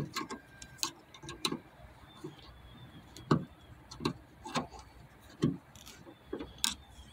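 Small metal pick tool clicking and scraping against the metal retaining clip on a trunk gas strut's ball-socket end as it is pried loose: a string of irregular sharp clicks.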